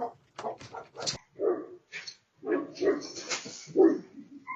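Dogs barking in a string of short, separate barks, about two a second, with uneven gaps between them.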